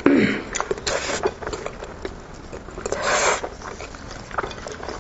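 Close-up mouth sounds of a person eating sheep's head meat: wet chewing and lip smacking, with two short sucking sounds, one at the start and one about three seconds in.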